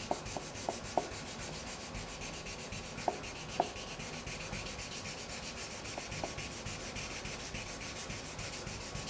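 Quick, even back-and-forth strokes of 600-grit sandpaper on a hand sanding block over the car's painted body panel, knocking down a paint run, several strokes a second. A few light taps in the first second and again around three and six seconds in; the sanding stops abruptly at the end.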